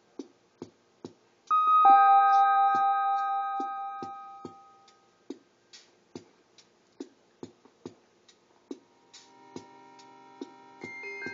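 Omnichord electronic instrument playing: its built-in rhythm machine ticks out a steady beat of sharp clicks, a bright chord rings out about a second and a half in and fades away over a few seconds, and another sustained chord comes in near the end with more notes over it.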